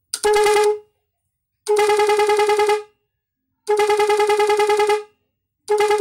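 Snail-shaped air horn, a Scania/Volvo-style Hella copy, switched by a horn interrupt module and sounding four blasts on one steady pitch, each a little longer than the last. Each blast flutters at about ten pulses a second as the module chops the air.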